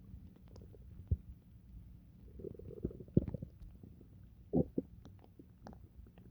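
Human stomach and intestines gurgling while digesting pizza: a low steady rumble broken by short pops and gurgles, with a longer bubbling gurgle from about two and a half to three and a half seconds in and a sharp double pop about four and a half seconds in.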